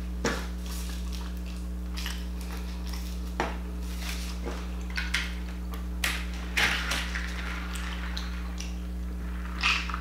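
Close-miked eating sounds: scattered clicks and smacks of chewing and handling food, with a large foam drink cup picked up near the end, over a steady low hum.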